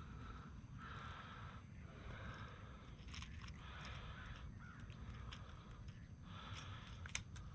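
A crow cawing over and over, harsh calls about one a second, faint under a low outdoor rumble, with a couple of sharp clicks in the second half.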